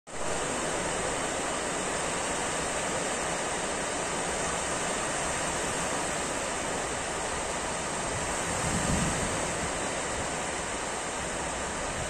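Small sea waves breaking and washing onto a beach: a steady surf hiss that swells briefly about nine seconds in.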